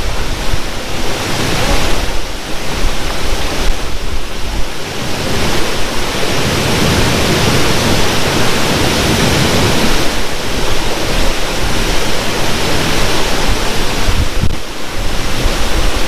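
Loud, steady rush of a creek and waterfall, with an uneven low rumble of wind buffeting the microphone.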